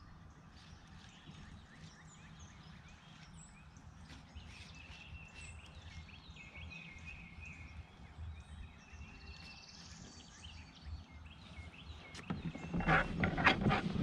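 Quiet creekside ambience with faint songbird calls and trills. About twelve seconds in, louder rustling and clicking handling noise starts close to the microphone.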